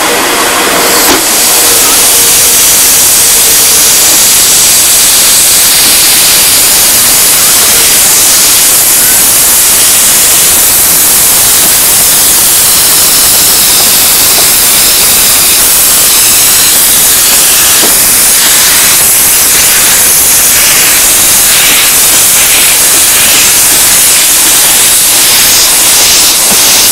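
Narrow-gauge 0-6-2 tank steam locomotive hissing loudly and steadily with escaping steam. In the last several seconds faint regular beats come through as it moves off with its train, its cylinder cocks blowing steam at the wheels.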